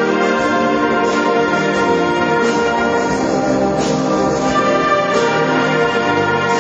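Student brass band playing a sustained chordal passage, with percussion hits a little over a second apart.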